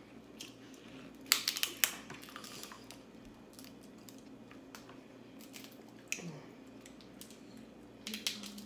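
King crab leg shells being cracked and snapped open by hand: a quick run of sharp crackling clicks about a second and a half in, scattered single clicks, and another short run near the end.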